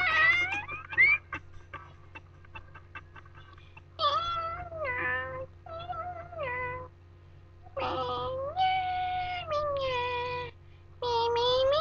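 A high-pitched voice singing for a sock puppet in short, drawn-out phrases without clear words, its held notes sliding down in pitch, with brief pauses between phrases.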